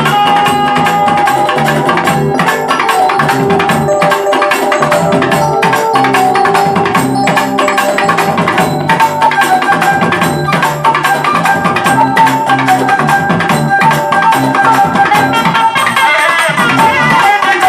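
Festival procession band: a double-reed pipe playing a melody in long held notes over fast, steady drumming on barrel drums.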